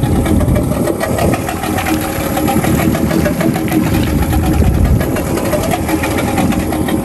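Outboard motor idling steadily.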